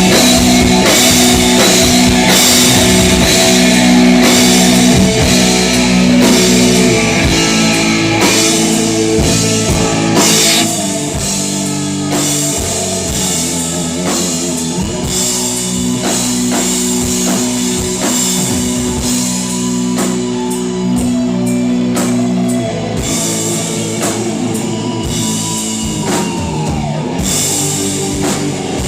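Loud rock music: held electric guitar chords over a drum kit, a little quieter from about ten seconds in, with a note sliding down in pitch near the end.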